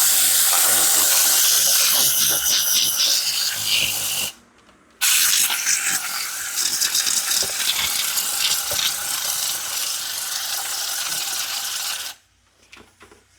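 Compressed-air blow gun with a bristle-brush nozzle blasting air in a loud, steady hiss. The trigger is let go for about half a second around four seconds in, then the gun blows again until about twelve seconds in, followed by a few faint clicks.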